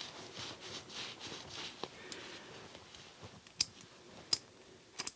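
Faint rubbing and scraping, then a few sharp, light clicks of small metal ratchet parts being handled and set down, two of them close together near the end.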